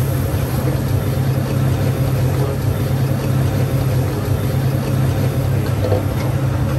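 Commercial gas wok stove running with a steady low roar, while oil with curry leaves and chilli sizzles in the wok.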